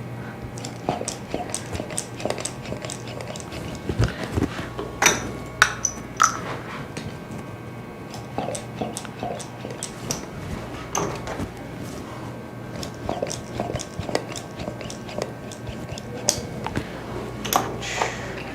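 Cupping cups being handled and set on the skin of the back: a run of irregular sharp clicks, taps and light clinks.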